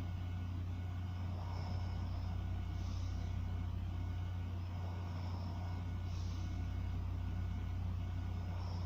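A steady low hum, with a sleeping person's slow, soft breathing heard faintly about every three and a half seconds; no clear snore.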